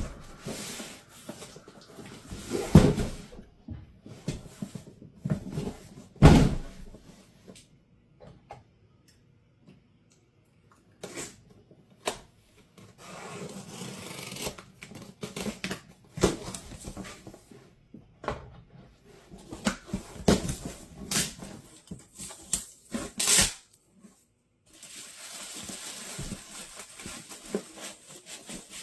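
A cardboard box and its packaging being handled while a PC case is unboxed: rustling and scraping broken by knocks and clicks, with two loud thumps about three and six seconds in.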